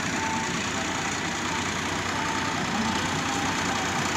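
Ford 3610 tractor's three-cylinder diesel engine running steadily under load as it drags a rear implement across loose, ploughed soil.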